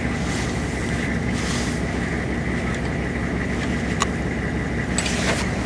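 Rollback tow truck's engine idling steadily, with a thin steady whine over it. There is a sharp metallic click about four seconds in and a softer one near the end.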